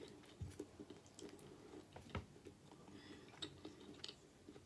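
Faint, wet chewing of a mouthful of creamy pasta, with several soft clicks and taps of a metal fork on a paper plate, the sharpest a little after two seconds in.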